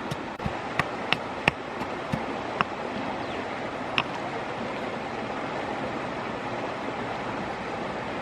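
Steady rushing of a flowing river, with a few sharp clicks and taps in the first half.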